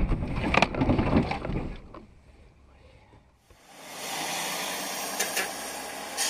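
A car running off the road into brush: a heavy rumble with sharp knocks of branches striking the body, dying away about two seconds in. After a short near-silence, the steady hiss of tyres on a wet road takes over, heard from inside a car.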